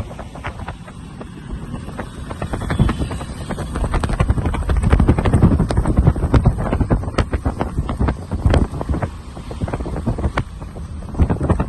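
Strong wind buffeting the microphone: an uneven, gusting low rumble and rush, with many sharp crackles and pops through it, growing louder about four seconds in.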